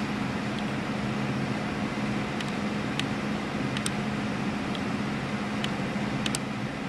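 A steady low hum over a fan-like hiss, with scattered short clicks from the keys and F-buttons of a Syntec CNC controller panel being pressed.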